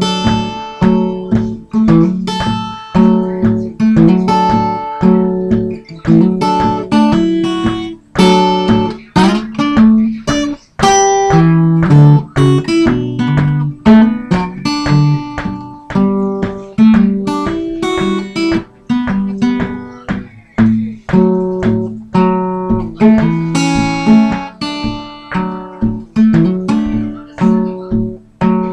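Solo acoustic guitar fingerpicked in a country-blues style, a steady beat of bass notes under plucked melody notes.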